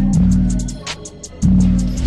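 Intro music: a beat with a heavy, sustained bass line and quick hi-hat-like ticks; the bass drops out for about half a second a little after the middle, then comes back.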